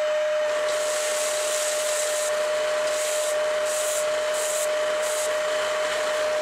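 Benchtop belt sander running with a steady whine. From about half a second in, wood is pressed against the moving belt with a hissing scrape, then in several short strokes near the end.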